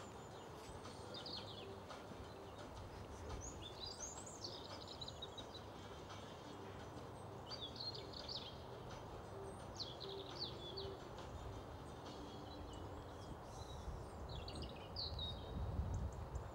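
Small birds singing in short chirping phrases, about five times, over a steady outdoor hiss. A low rumble builds near the end.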